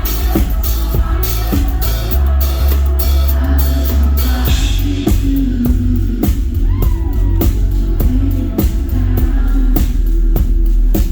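Live band music: a drum kit keeping a steady beat over a heavy bass line, with guitar.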